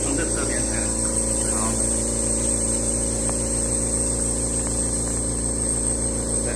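Steady hum and hiss of the air supply feeding a microporous ceramic vacuum chuck, with air blowing out through the porous ceramic under positive pressure so that a solar cell floats on it.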